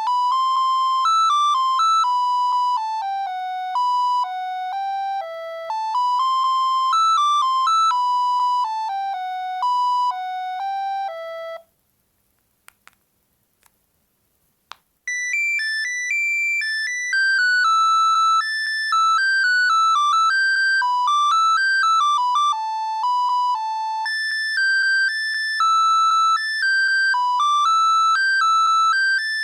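Bird S296 mobile phone playing its built-in electronic ringtones, each a single-line melody. One tune stops about twelve seconds in, a few short clicks follow in the silence, and a higher-pitched tune starts about three seconds later.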